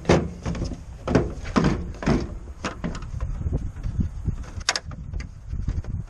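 Hollow plastic vacuum cleaner housing being handled and turned over on a pickup's tailgate: irregular knocks, clatters and scrapes of plastic, the sharpest right at the start and about a second in.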